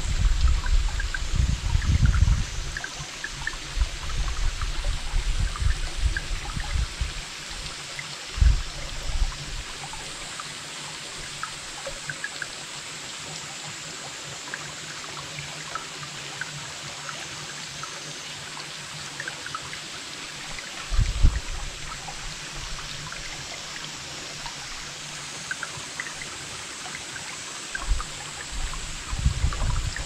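Shallow creek trickling over rocks: a steady rush of water flecked with many small, bright plinks. Bursts of low rumble come and go through the first seven seconds, and again briefly about eight and a half and twenty-one seconds in.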